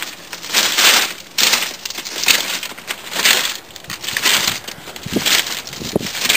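Footsteps crunching on gravel, about one step a second.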